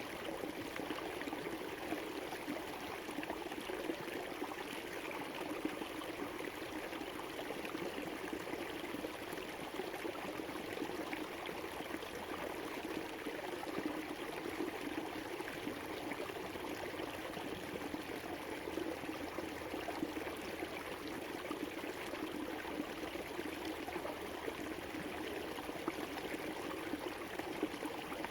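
Shallow river flowing steadily over rocks, a continuous rushing and babbling of water.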